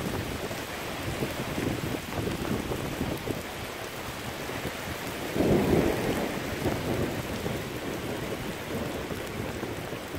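Heavy rain pouring steadily in a storm, with a louder low swell about halfway through.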